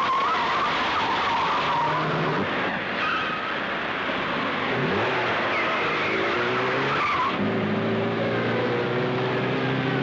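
Chase-scene car sounds from a FIAT 124 and an Alfa Romeo Giulia TI: fast-driven engines with tyres squealing repeatedly through the first several seconds. About seven and a half seconds in, a strong engine note comes in and climbs in pitch as a car accelerates.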